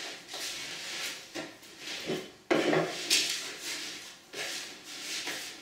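Plastic dough scraper chopping and scraping cold butter into sugar on a wooden worktop, in repeated strokes about two a second with a sharper knock about two and a half seconds in: the butter being worked in for a shortcrust dough.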